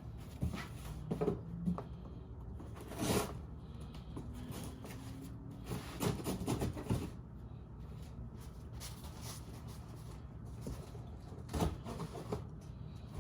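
Scattered knocks and bumps, several short ones spread through, over a steady low hum.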